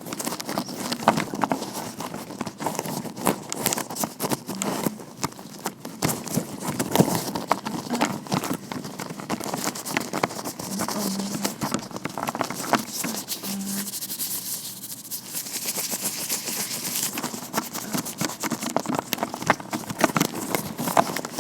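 Vinyl-latex gloved hands rubbing, tapping and scratching close to the microphone: a dense run of crackly clicks over a rustling hiss, with a brighter, hissier stretch of rubbing about two thirds of the way in.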